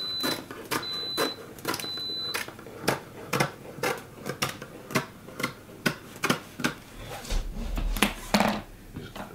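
Scissors snipping through stainless steel window screen mesh, a steady run of crisp cuts about two to three a second.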